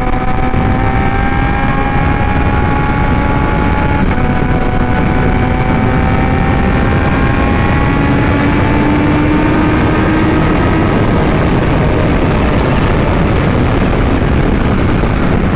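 Kawasaki Ninja H2's supercharged inline-four, breathing through a freshly installed Vandemon exhaust, pulling steadily on the road with its note slowly rising in pitch and a brief dip about four seconds in.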